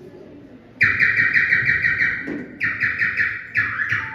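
A man imitating birdsong with his mouth: three rapid, warbling trills, the first about a second long, starting about a second in.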